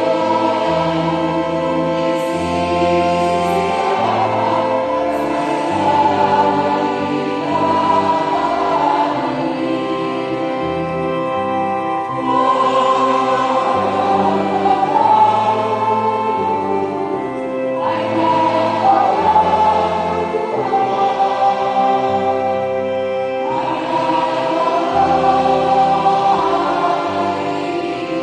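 A mixed church choir singing a hymn together, held notes in long phrases with brief breaths between them.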